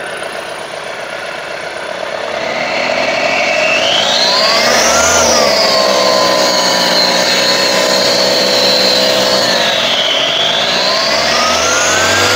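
Mahindra Bolero Pickup BS6 diesel engine running with the turbocharger's intake pipe removed, idling and then revved. About two seconds in, a high turbo whine rises as the revs climb, holds, eases briefly near the end and rises again. The test checks a turbo that is leaking engine oil and causing white smoke, suspected of a broken compressor blade.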